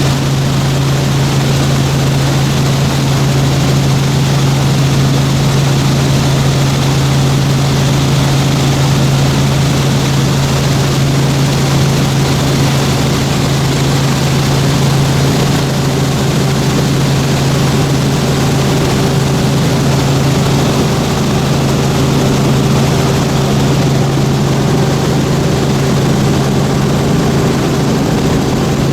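Helicopter in flight: a loud, steady drone of engine and rotor, with a strong low hum under a wide, even hiss. It holds constant throughout, and a faint higher tone joins about halfway through.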